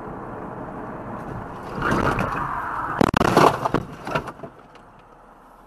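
A car crash heard from a dash camera inside the car: a rising rush of noise, then a sharp bang about three seconds in with about half a second of crunching scrape, and a couple of smaller knocks after it before things settle.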